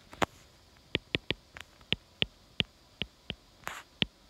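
A stylus writing on a tablet screen: a quick, irregular string of sharp tip clicks as words are handwritten, with a short scratchy stroke near the end.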